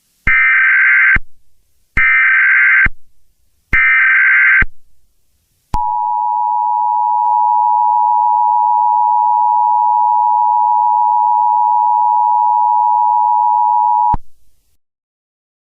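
Emergency Alert System broadcast tones: three short bursts of SAME header data tones, each about a second long, then the EAS attention signal, a steady two-tone alarm held for about eight seconds before it cuts off. This marks the start of an emergency alert activation.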